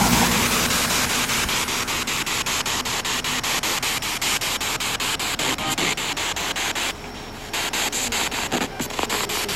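SB7 spirit box sweeping through radio frequencies: a steady hiss of radio static chopped into rapid, even pulses several times a second, with a short quieter stretch about seven seconds in.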